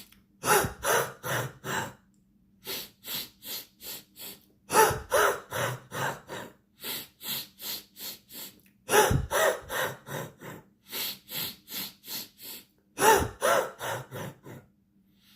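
A man breathing hard and fast in sets of five short breaths, about three a second: five quick breaths in, then five out, repeated. The sets alternate louder and softer. This is a forceful pranayama-style exercise meant to loosen phlegm in the chest.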